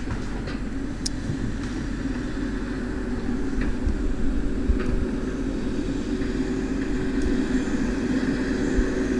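Heavy diesel logging machinery running: a steady low engine drone with a constant hum throughout.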